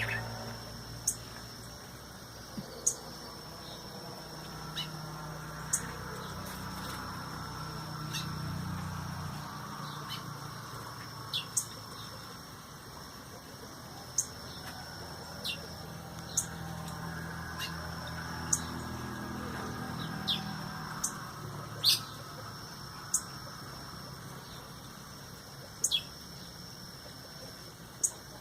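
Small birds giving short, sharp chip calls, about twenty single notes dropping quickly in pitch, scattered irregularly. A steady high-pitched tone and a soft low rumble run underneath.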